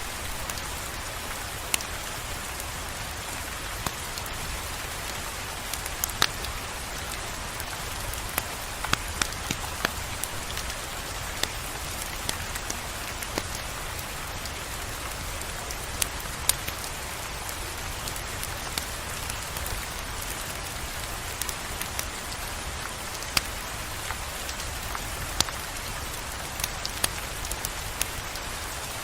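Steady rainfall hissing, with scattered sharp clicks and pops every second or two over a low rumble.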